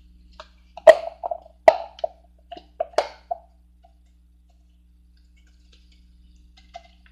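A run of sharp knocks and taps, about eight in two and a half seconds starting about a second in, the first two loudest: hard kitchen items striking each other.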